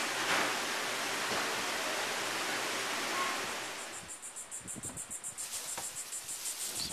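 A steady rushing hiss that cuts off about four seconds in, giving way to insects chirring in a high, rapidly pulsing trill.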